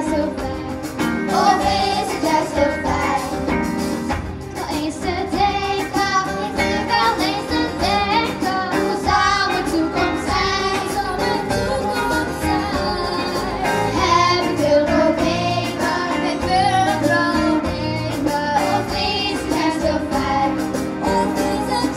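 A group of children singing together into microphones, accompanied by a live band with a steady beat.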